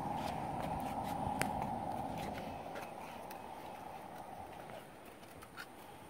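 A horse's hooves clicking and scraping on hard rocky ground as it turns and walks off. The sharp, scattered hoof strikes are heard over a steady rushing noise that fades away over the first few seconds.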